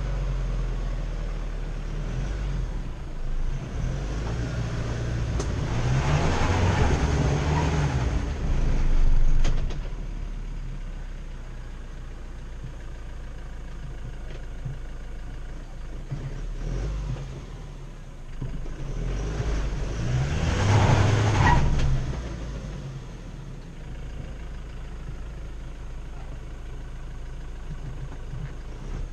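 Off-road 4x4's engine running at low speed as it crawls up a rutted dirt trail, revving up twice, about six and twenty seconds in, then settling back.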